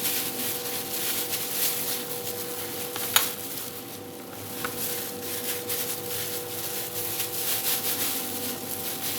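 Butter and oil sizzling and crackling in a frying pan, with a sharp clink about three seconds in and a fainter one a moment later. A steady low hum runs underneath.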